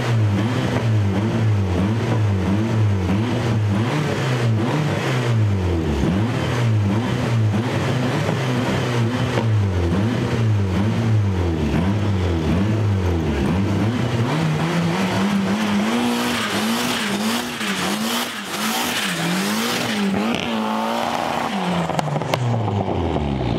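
A modified VW Golf Mk1's turbocharged two-litre 16-valve engine is revved up and down over and over, rising and falling about once a second. From about two-thirds of the way through it is held at higher revs with smaller swings, then it drops away at the very end.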